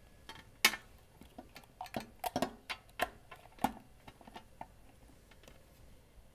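Scattered light clicks and taps of a USB cable being handled and its plugs pushed into a small interface box and a laptop's USB port, most of them in the first four seconds.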